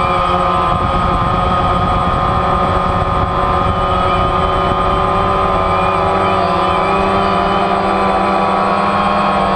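DJI Phantom quadcopter's four electric motors and propellers, heard from the camera riding on it: a loud, steady whine of several close tones that waver slightly as the motor speeds shift, over a low rumbling buffet on the microphone.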